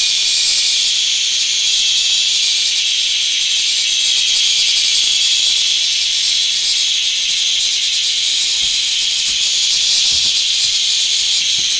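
Cicada buzzing: a loud, steady, shrill drone that runs without a break.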